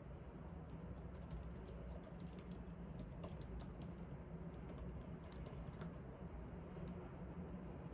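Typing on a keyboard: a quick, uneven run of light key clicks over a low, steady room hum.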